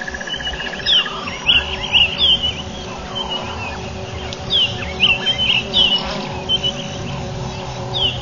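Wild birds calling with short, repeated falling chirps, over a steady faint hum. A fast pulsing trill stops about a second in.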